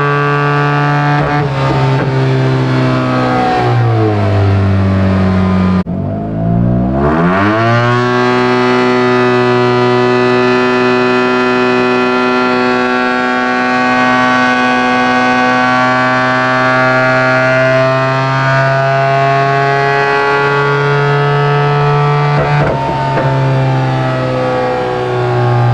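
Yamaha T-Max 500 scooter's parallel-twin engine, fitted with an opened-up exhaust and a modified transmission, running hard on a chassis dyno during a power run. The engine note holds high and nearly steady, sags about four seconds in and dips sharply near six seconds. It then climbs back up within about two seconds and holds nearly steady again.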